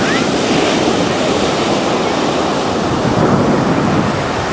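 Pacific surf breaking with a steady rush, with wind buffeting the microphone.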